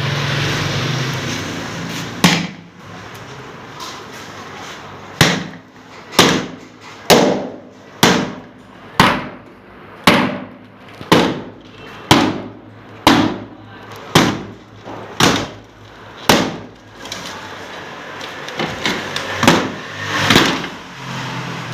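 Hammering: about a dozen sharp blows at a steady pace of roughly one a second, then it stops.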